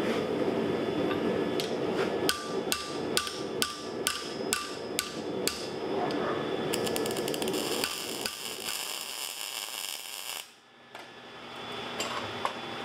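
Blacksmith's hammer striking hot steel on an anvil: about nine blows, roughly two a second, each with a short metallic ring, over a steady rushing noise. A fast, high crackling hiss follows the blows.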